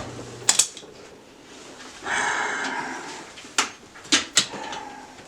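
Stick-welding electrode being struck on thin steel pipe: sharp snaps as the rod touches and arcs. About two seconds in, the arc catches for a second and a half of buzzing crackle, then a few more snaps as it goes out and is struck again.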